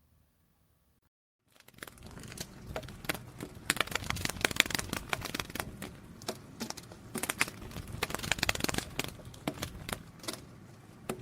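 Close handling noise: rustling and crinkling with many irregular small clicks, starting after about a second and a half of silence.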